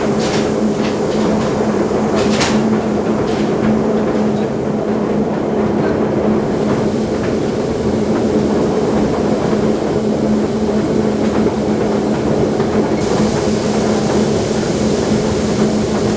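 Heavy diesel farm machinery running steadily at a constant pitch, with a few sharp clanks in the first three seconds.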